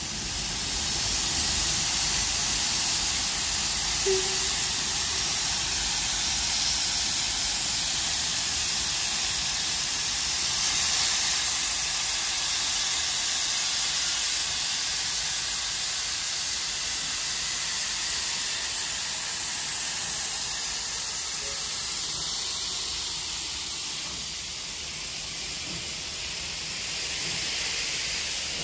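Victorian Railways R-class steam locomotive R711 standing at the platform, venting a steady hiss of steam. The hiss comes up sharply at the start, eases somewhat in the latter part and swells again near the end.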